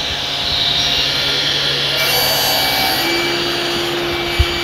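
SCM sliding-table circular saw running at speed while it crosscuts a small wooden panel, a steady machine drone whose cutting noise grows from about two seconds in. A single sharp knock comes near the end.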